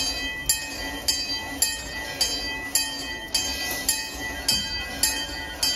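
The 18-inch-gauge railroad's 4-6-2 steam train, with a sharp metallic strike about twice a second, evenly spaced, over a steady ringing tone.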